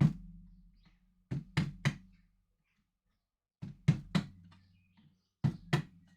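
Sharp knocks on a hollow object, in quick groups of two or three with pauses between, each strike leaving a short low ring.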